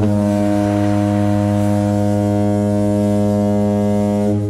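A single loud, low, steady horn-like tone with a rich stack of overtones, held level and starting to die away right at the end; an intro sound effect.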